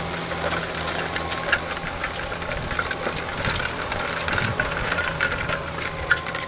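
Kubota tractor's engine running steadily while pulling a disc harrow through ploughed soil, with frequent irregular clicks and rattles from the harrow working the ground.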